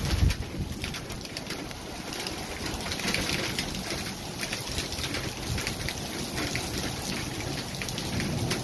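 Strong gusty wind rushing steadily and buffeting the phone's microphone with a low rumble, hardest just after the start, with scattered light ticking over it.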